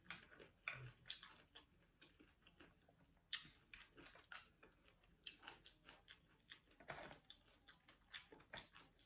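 Faint eating sounds of someone chewing raw oysters, with scattered soft clicks and taps at irregular intervals, the loudest about three seconds in and again about seven seconds in.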